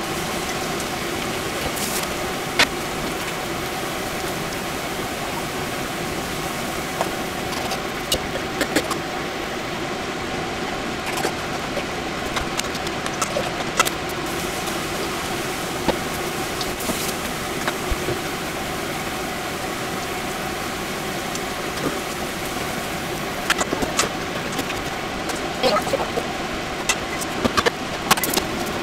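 Tempura deep-frying in a pot of hot oil: a steady sizzle with scattered pops and crackles, over a steady low hum. The clicks and knocks grow more frequent near the end.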